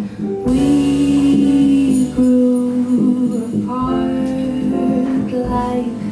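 Live band music from piano, drums and bass guitar, with long held melody notes over changing chords.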